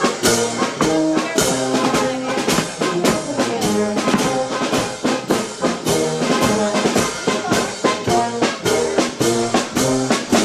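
Alpine brass band of trumpets, flugelhorns and tuba playing a tune over a steady beat while marching in procession.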